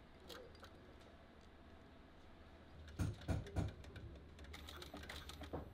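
Industrial post-bed sewing machine stitching leather. A low steady hum with scattered clicks, then a few heavy knocks about three seconds in, the loudest sounds. Near the end the needle starts a rapid, even clicking as stitching gets under way.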